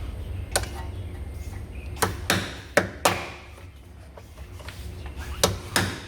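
Tools knocking and tapping on metal suspension parts during a control-arm fitting: about seven sharp, irregular strikes, clustered near the middle and near the end, over a steady low hum.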